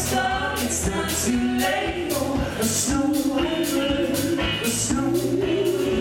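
Live folk band playing a song with banjo, acoustic guitar, electric guitar and drums keeping a steady beat, and a woman and a man singing together.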